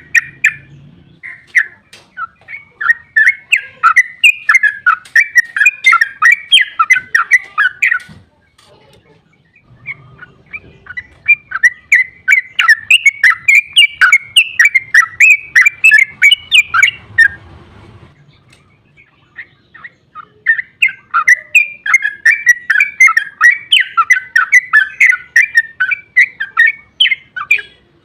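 Yellow-vented bulbul (trucukan) singing its fast, rambling 'ropel' song: three long bouts of rapid, bubbly notes, a few per second, broken by short pauses.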